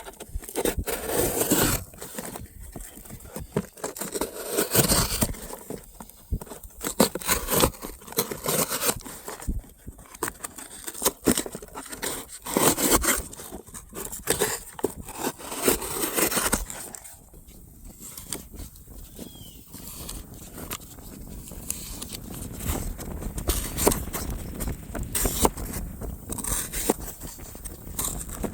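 A knife blade cutting and scraping through material in irregular strokes, with rustling handling noise in between, as the finished Damascus hunting knife is tested.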